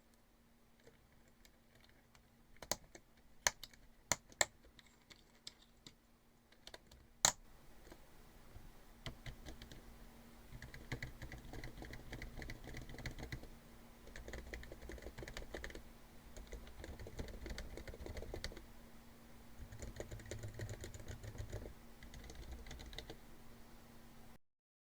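HHKB Professional 2 keyboard, its Topre switches quieted with orthodontic rubber bands, being typed on in quick runs with short pauses. In the first several seconds there are only a few separate sharp key clicks. The sound cuts off suddenly near the end.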